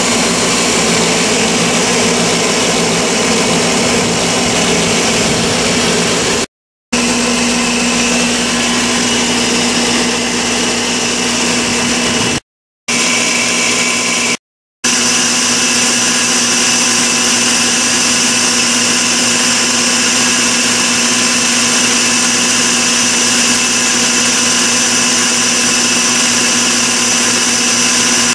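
3 HP rotary screw air compressor with its 3450 rpm electric motor and cooling fans running steadily under load, pumping up toward about 100 PSI. The sound drops out briefly three times.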